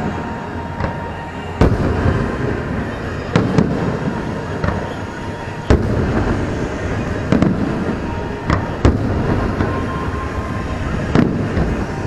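Aerial fireworks shells bursting: sharp bangs every second or so over a continuous rumble and crackle of the display.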